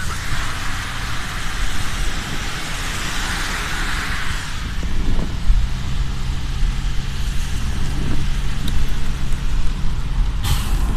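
Traffic in heavy rain heard from inside a car: a low rumble of engines and wet road noise, with a loud hiss of rain and spray over the first four seconds or so. A steady engine hum sets in about halfway, and a short sharp hiss comes near the end.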